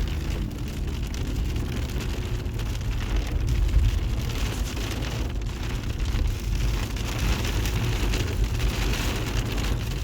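Hailstones pelting down in a dense, steady patter, with a low rumble running beneath it.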